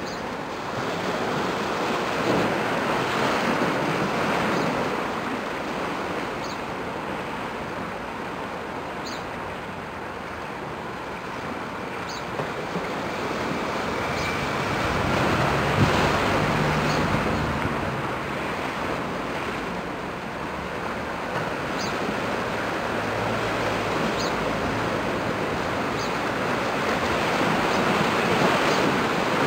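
Rushing wind and water from small waves washing on the rocks of a breakwater, swelling and easing every several seconds, with wind buffeting the microphone.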